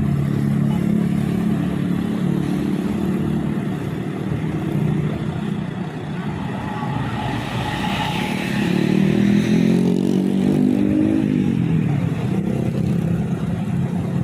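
Road vehicles passing close by, their engines running over steady road noise. A second engine comes up about eight seconds in, and its pitch slides down as it goes past.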